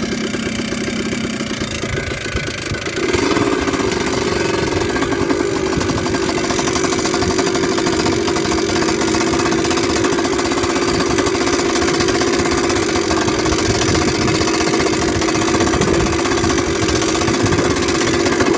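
Motorcycle engine running steadily. About three seconds in it steps up to a higher, louder pitch and holds there.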